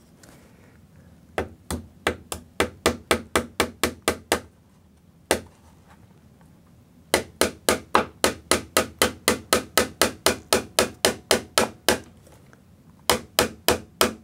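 Small hammer tapping a brad into a wooden trim strip: quick, light strikes about four a second, in three runs with short pauses and a single tap between them, driving the brad home to hold the glued strip.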